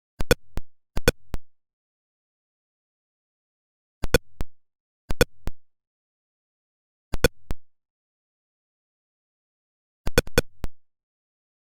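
Atari Pong sound effects: short, pitched electronic blips in six quick groups of two or three, at uneven intervals with dead silence between. Each group marks the bouncing DVD logo hitting an edge of the screen.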